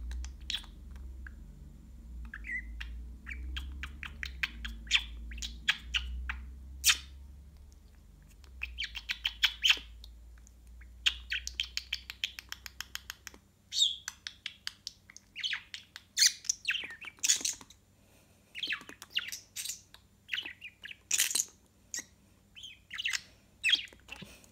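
Budgerigar chattering and warbling in quick runs of chirps and clicks, getting busier in the second half.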